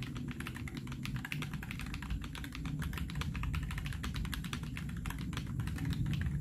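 Rapid, continuous typing on a mechanical keyboard with Akko V3 Creamy Blue Pro switches, an aluminium plate and no foam in an aluminium Xinmeng A66 case: quick keystroke clicks over a deeper low knock.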